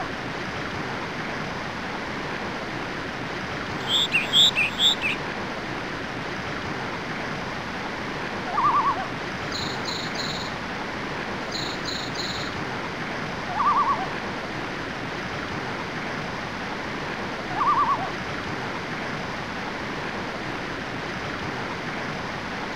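Steady rush of a waterfall. Over it a bird gives a short low call three times, a few seconds apart, and another bird chirps high several times about four seconds in, then more faintly around ten to twelve seconds in.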